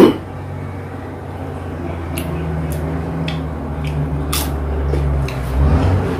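Juicy pineapple being eaten close to the microphone: a loud wet mouth sound at the start, then chewing with crisp, wet smacking clicks about twice a second. A steady low hum runs underneath.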